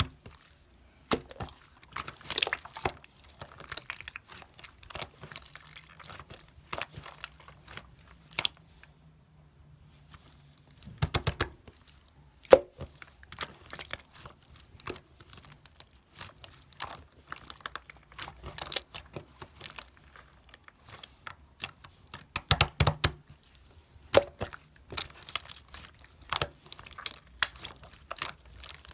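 Small batch of slime being mixed and squeezed by hand, giving irregular sticky clicks and little pops, with louder squelching runs about eleven seconds in and again about twenty-three seconds in.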